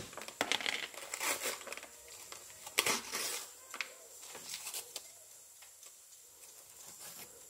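Inner seal of a cocoa powder tin being peeled and torn off by hand, crinkling and tearing in irregular bursts, the loudest rip about three seconds in, then quieter rustling.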